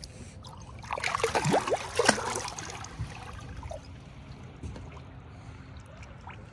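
Water splashing and gurgling at the surface beside a boat, loudest for about a second and a half starting about a second in, then settling to gentle lapping.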